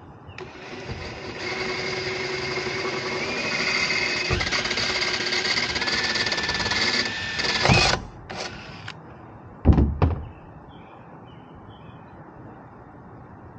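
Cordless drill running for about seven seconds as it works a fastener into a ladder-rack mount. Its whine steps up in pitch twice and then stops with a knock. Two short bursts from the drill follow, and then two loud knocks.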